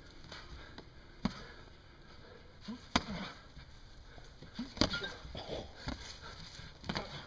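Gloved punches landing in a sparring bout: four sharp smacks a second or two apart, with short grunts from the fighters in between.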